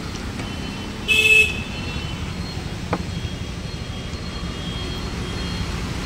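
Steady road-traffic rumble with a vehicle horn honking once, briefly, about a second in. A single sharp click comes about three seconds in.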